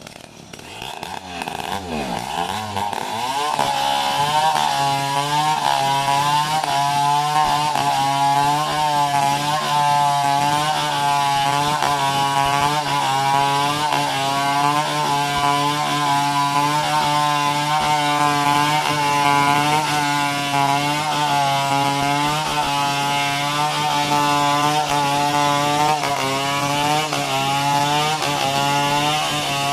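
Chainsaw engine revving up over the first few seconds, then running under load while cutting through a coconut palm trunk. Its pitch dips and recovers in a steady rhythm, a little faster than once a second.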